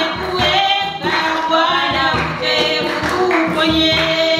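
Church worship singing: a group of voices singing a praise song over band music with a steady beat.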